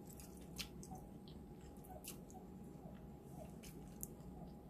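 Faint close-up mouth sounds of eating stir-fried glass noodles: wet chewing and slurping with scattered lip smacks, the sharpest about half a second in and again about four seconds in.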